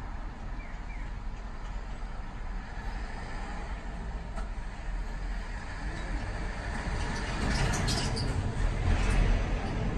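Low, steady rumble of road traffic heard from inside a streetcar standing at a junction while a diesel dump truck drives across in front. It grows louder with a hissing noise over the last few seconds.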